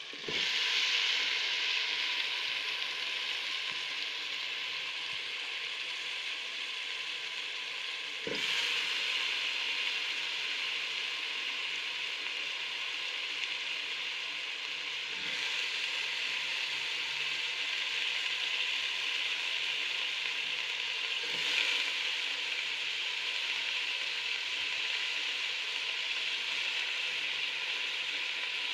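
Cauliflower florets and potato pieces sizzling loudly as they hit the hot oil and fried spice paste in a pot. The sizzle jumps up at the start and surges afresh three more times as further handfuls go in.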